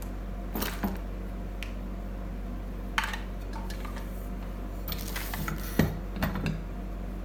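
Scattered clinks and knocks of metal satellite LNB mounting parts being handled and set down, a few near the start and a cluster near the end, the loudest about six seconds in, over a steady low hum.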